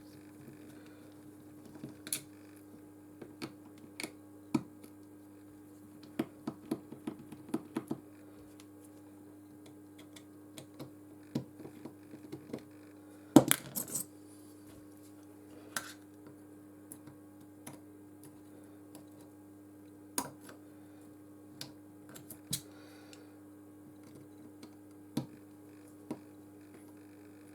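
Scattered small metallic clicks and taps of a precision screwdriver and tiny screws being worked out of a Nexus 6P smartphone, with a louder clatter about 13 seconds in, over a faint steady hum.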